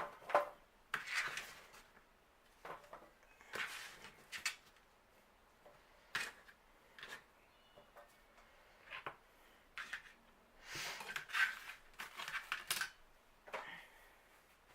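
Sliced peppers and onions being dropped and tipped into a metal pan, with irregular clatters, knocks and rustles that come in bunches, busiest near the end.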